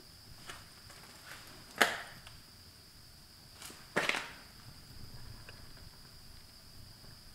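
Two sharp knocks about two seconds apart, with a few faint taps before them, over a steady high chirring of insects.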